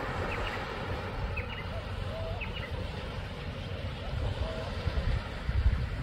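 Wind rumbling on the microphone over a steady wash of surf, with small birds calling: short low chirps every second or two and several quick rising high notes in the first few seconds.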